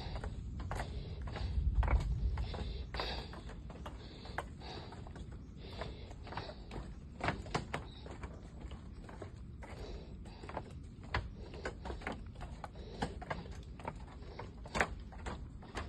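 Irregular knocks and scuffs of footsteps on a trail going downhill, with a low rumble of wind on the microphone about two seconds in.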